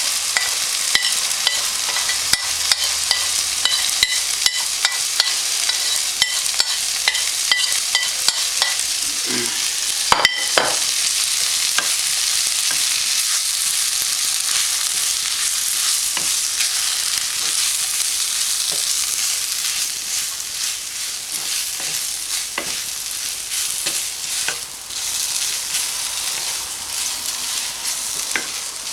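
Okra frying and sizzling in a pan, just dusted with gram flour, while a spatula stirs it, tapping and scraping against the pan about twice a second for the first ten seconds, with one louder knock. The sizzle gets a little quieter in the last third.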